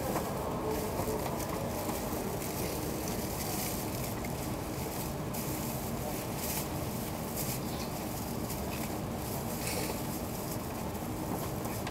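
Steady cabin hum inside a stationary E2 series Shinkansen car standing at a station platform, with scattered faint clicks.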